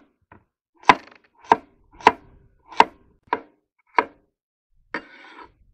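Large kitchen knife chopping carrot on a wooden cutting board: six sharp knocks in a steady rhythm, a little under two a second, then a brief clatter near the end.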